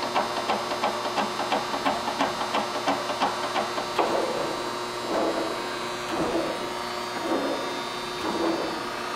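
Chevalier automatic surface grinder running its automatic cycle: a steady machine hum with rapid ticking, about four clicks a second, that stops about four seconds in, followed by a few slower swells of mechanical noise.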